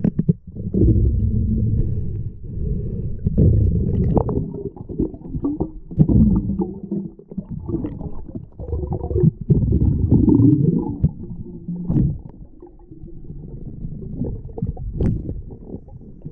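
Muffled, low underwater rumble and water movement picked up by a camera in its waterproof housing, rising and falling in swells, with a few sharp clicks or knocks.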